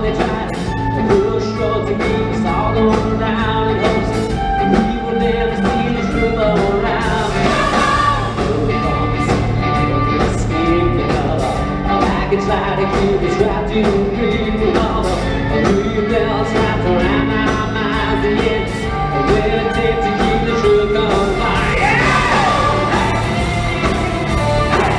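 Rock band, symphony orchestra and choir performing together live, with sung vocals over guitar, violin, drums and sustained orchestral chords. The music plays steadily and loud without a break.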